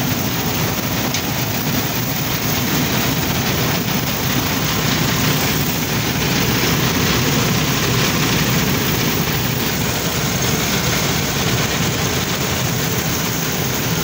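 Combine harvester running steadily while cutting standing wheat: engine, reel and threshing machinery in one loud, unbroken noise, heard from the driver's seat.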